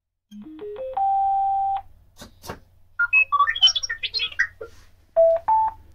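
R2-D2 replica droid's speaker, driven by a newly fitted Bluetooth amplifier board, powering up. A quick rising run of stepped electronic tones leads into a held beep, followed by two clicks, a burst of R2-D2-style warbling chirps and whistles, and two more rising beeps, all over a faint low hum. The extra beeping is typical of the amplifier board trying to make a Bluetooth connection at power-up.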